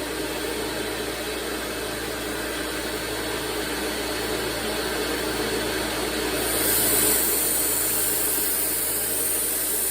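1x30 belt sander with a 120-grit belt running steadily. From about two-thirds of the way in, a high hiss joins it as a steel chef's knife blade is ground against the belt, cutting new edge bevels.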